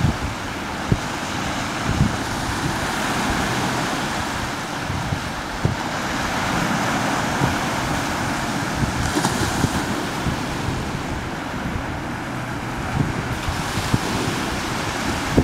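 Small waves breaking and washing up a sandy beach, a steady rushing that swells and eases, with wind buffeting the microphone in occasional low thumps.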